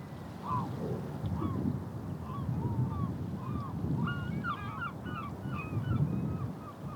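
A flock of geese honking, many short calls overlapping, busiest about four to five seconds in, over a steady low rumble.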